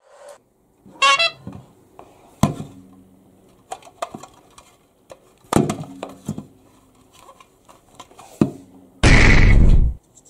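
A hollow plastic shape-sorter ball being handled: several separate knocks and thunks of hard plastic, each with a short hollow ring. A brief high squeak comes about a second in, and near the end a loud rushing noise lasts about a second.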